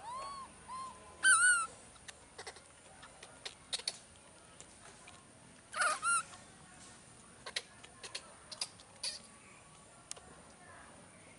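Baby monkey giving short, high-pitched arching calls: a quick run in the first two seconds and a pair about six seconds in. Light clicks come scattered between them.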